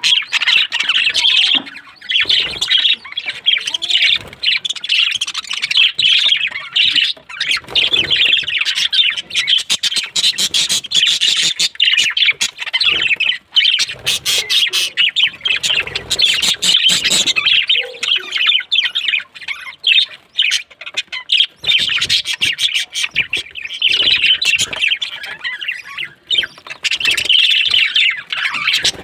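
A group of small birds chattering and squawking continuously, many calls overlapping.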